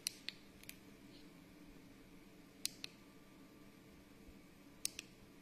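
Small sharp plastic clicks of the single push-button on an LED glove's battery module, pressed several times to switch the fingertip lights on: three clicks in the first second, then two quick pairs about two seconds apart.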